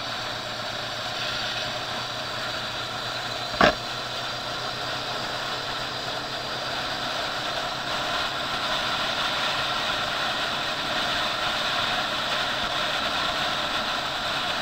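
Motorcycle engine running steadily at cruising speed, heard on board a moving bike with wind rushing over the microphone; a single sharp knock about three and a half seconds in.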